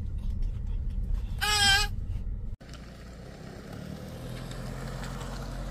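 Steady low rumble of a car cabin on the move, with a child's high, wavering squeal about a second and a half in, lasting half a second. It cuts off abruptly, giving way to a quieter, steady low outdoor hum.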